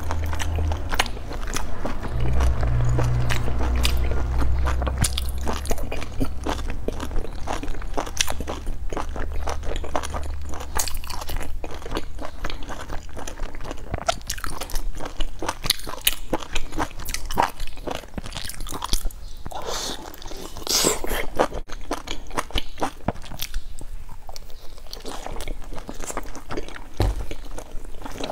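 A person chewing and biting into a large stuffed bun dipped in sauce, with many short, wet clicking mouth sounds.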